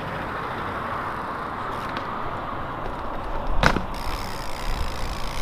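Steady hiss of street traffic, broken about three and a half seconds in by one sharp knock with a brief ring from the trials bike's hop at the brick wall.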